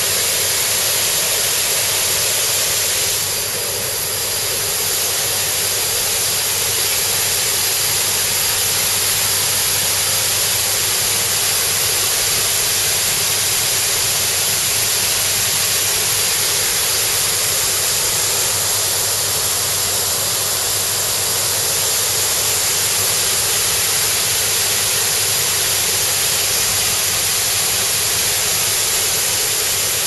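Tat Ton waterfall cascading over sandstone ledges into a pool: a steady rush of falling water with the flow not yet high, early in the season.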